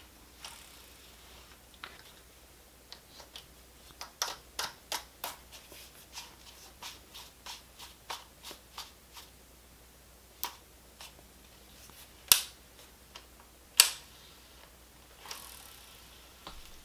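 Fishing reel being handled: a run of light clicks a few a second, then three sharper clicks in the second half.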